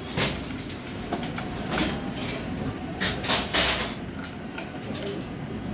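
Metal clinks and taps of a wrench on the front shock absorber nuts of a Hero Splendor i3s as they are checked and tightened: a few scattered strokes, several close together about three seconds in.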